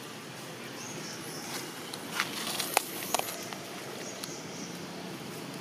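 Dry leaves and twigs crackling and rustling as a baby monkey handles a twig and moves on the leaf litter, with a cluster of sharp snaps about two to three seconds in, over a steady outdoor hiss.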